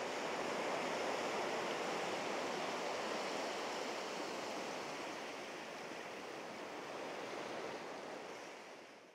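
Small sea waves washing in and swirling around rocks at the shoreline: a steady surf wash that swells and eases a little and fades out near the end.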